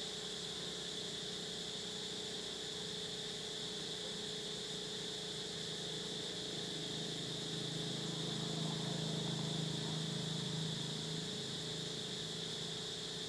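Steady background hiss with a low engine hum that grows louder over several seconds past the middle and then eases off.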